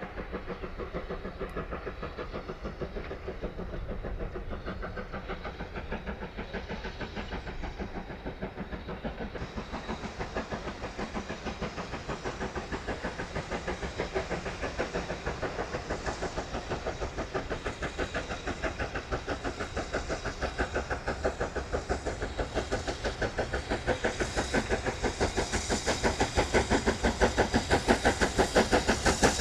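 Steam locomotive working a train, its exhaust beating in a steady rhythm of about three beats a second and growing louder as it approaches.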